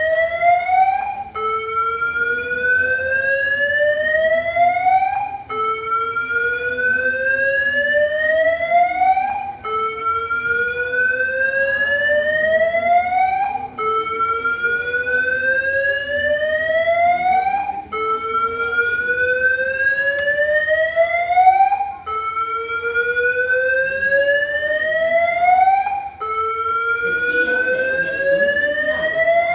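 Airport terminal alarm sounding a slow whoop: a tone rises steadily for about four seconds, breaks off and starts again low, over and over.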